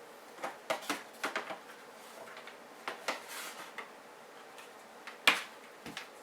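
Irregular light clicks and taps of small hard objects being handled, with one sharper knock about five seconds in.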